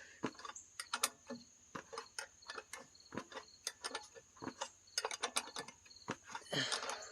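Hand wrench clicking and scraping against a bolt head in many sharp, irregular taps as a tight airbox bolt is worked out a little at a time, the bolt not having been out since the machine was built.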